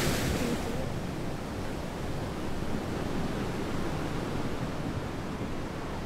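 Ocean surf washing on the rocks in a steady rush of noise, with a low wind rumble on the microphone.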